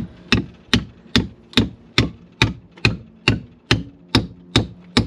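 Hammer driving a copper boat nail into a wooden frame and stringer of the hull: steady, even blows, a little over two a second.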